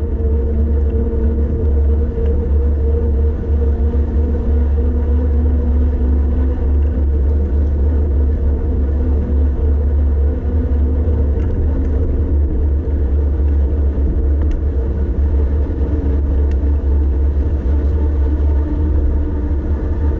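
Steady low wind rumble on the microphone of a bicycle rolling downhill, with a faint steady hum above it.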